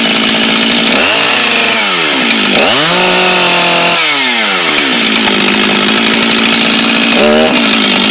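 Stihl 044 two-stroke chainsaw running and being revved by hand. It idles, gives a short rev about a second in and a longer held rev from about two and a half to four seconds, drops back to a steady idle, then blips briefly near the end.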